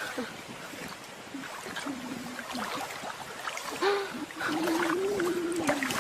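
Two drawn-out, wavering vocal sounds, the second starting about four seconds in and lasting longer, over a steady background hiss.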